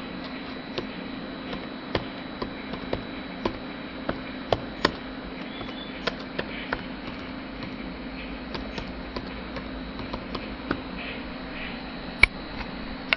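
Laptop keyboard keys being pressed one at a time: irregular sharp clicks, roughly one to two a second and sometimes in quick pairs, over a steady low hum.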